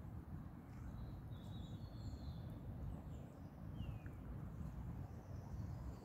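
Outdoor ambience with a steady low rumbling noise and a few faint high bird calls, one a short falling chirp about four seconds in.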